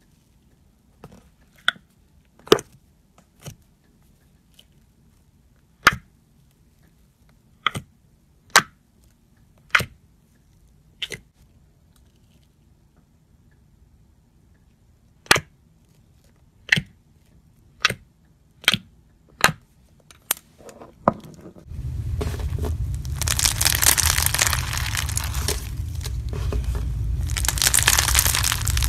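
Thick slime in a glass jar being stirred and pressed with a wooden stick, giving about fifteen sharp pops at irregular gaps. Later this gives way to a dense, steady crackling crunch as fingers squeeze floam, slime packed with foam beads.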